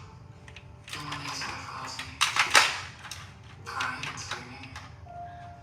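Clattering and clicking of plastic Hot Wheels track pieces and toy cars, with a quick loud run of clicks about two seconds in.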